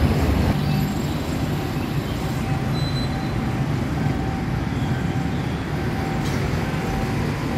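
Level-crossing warning signal sounding a faint, repeated tone while the barrier arms lower, over a steady noise of road traffic and surroundings.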